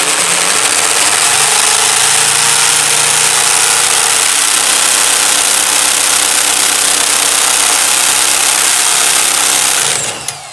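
Power drill spinning the Simson SR50's 50 cc two-stroke engine over by the flywheel: a loud, steady drill whine over the engine churning for about ten seconds, then the drill winds down near the end. The engine turns but does not catch, because of an ignition fault.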